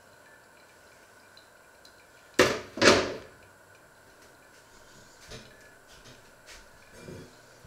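Two loud metal clanks about half a second apart, from kitchenware being handled, followed by a few faint clinks and knocks.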